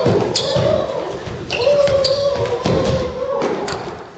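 Repeated thumps and knocks on a stage, mixed with several drawn-out vocal sounds that bend slightly in pitch.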